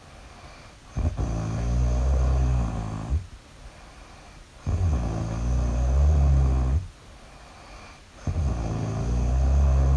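Loud human snoring: three long, low, rumbling snores in a steady rhythm, each about two seconds long, with quieter breaths in between.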